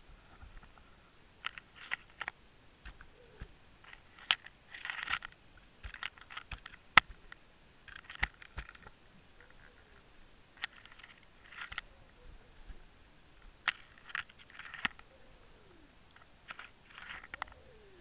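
Tautog biting and crunching at a baited rig underwater: short bursts of crunchy crackling and sharp clicks that come every second or two, with a few faint falling squeaks.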